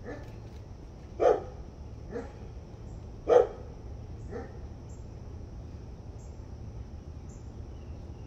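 A dog barking five times in the first four seconds or so, the barks about a second and three seconds in the loudest, then falling silent.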